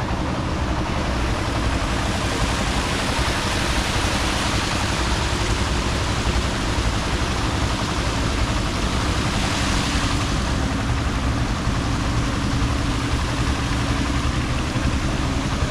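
An engine running steadily at an even pitch, with a continuous hiss over it.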